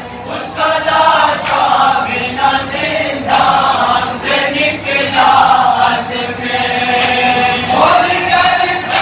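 A group of men chanting a nauha, a Shia lament, in unison, with a few sharp slaps of chest-beating (matam) cutting through.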